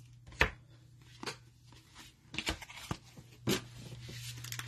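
Trading cards being handled and set down on a table, a handful of light scattered taps and clicks over a faint steady low hum. A rustle builds near the end as the next foil pack is taken up.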